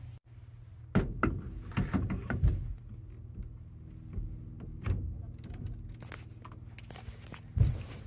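Knocks and thuds of a steering wheel and its hub being handled and fitted: a cluster of knocks from about a second in, then single ones near the middle and a louder one near the end, over a steady low hum.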